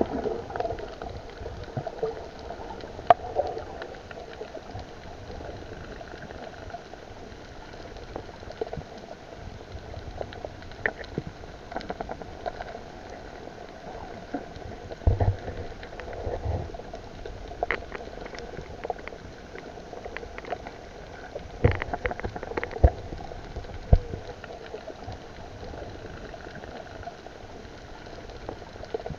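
Muffled underwater sound picked up by a camera in a waterproof housing: a steady bubbling, watery hiss with scattered sharp clicks and knocks.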